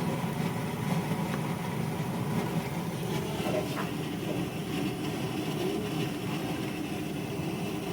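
Samosas frying in oil in a pan, a steady sizzle over a continuous low hum, with a few faint pops.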